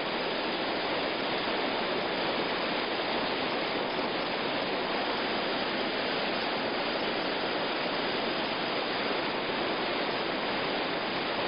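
Whitewater rapids rushing: a steady, unbroken wash of churning river water, even in level throughout.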